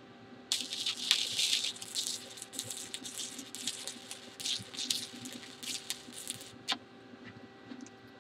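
Stick-welding (SMAW) arc from a 7018 electrode crackling irregularly as a tack is laid on a 3/8-inch steel test coupon. It starts about half a second in, runs about six seconds, and ends with one sharp click as the arc breaks.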